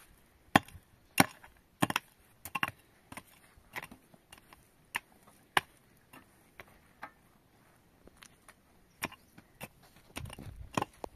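A series of sharp knocks: strong ones about every half second for the first two seconds, then fainter, irregular ones. A low rumble comes in near the end.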